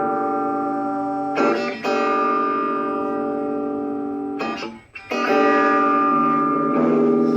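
Guitar chords strummed and left to ring, a new chord struck about a second and a half in, another after a brief break near five seconds, and one more near the end.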